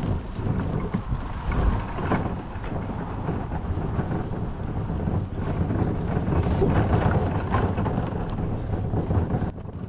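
A kayak on a small wheeled trailer being pulled over rough ground: a continuous rumble and rattle of wheels and hull, with wind buffeting the microphone.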